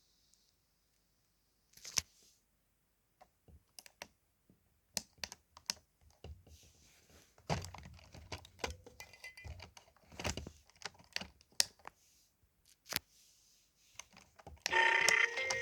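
Scattered plastic clicks, taps and knocks from a VTech Little Gadget toy being handled and switched on, a few with a dull thud. About a second before the end, the toy's electronic power-on jingle starts playing through its small speaker.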